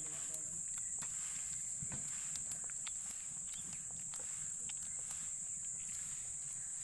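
Insects droning steadily in one high-pitched note, with scattered faint clicks and scuffs.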